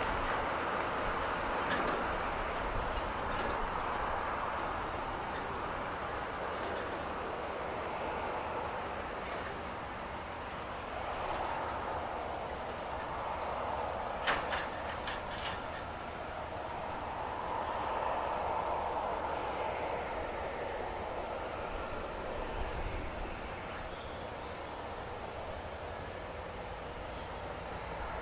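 Insects chirping in a steady, high, finely pulsing trill, over a soft rushing noise that swells and fades, with a few light clicks about halfway through.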